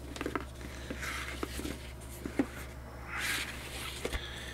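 Packaging being handled as a Blu-ray box set is opened: light clicks and taps, with two short scraping, rustling swells, one about a second in and one about three seconds in.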